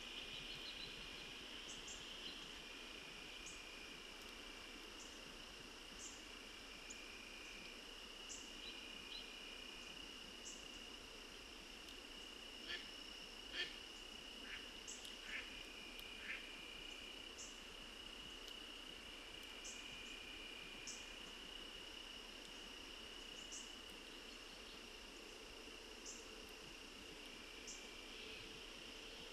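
Faint evening insect chorus of crickets, a steady high trill with a lower band pulsing on and off every few seconds and short high chirps about once every second or two. A handful of sharp clicks about halfway through stand out as the loudest sounds.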